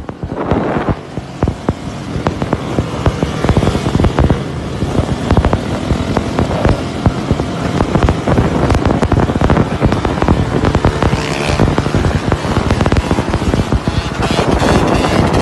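Dirt bike engines running during wheelies, with a dense, irregular crackle of sharp pops throughout.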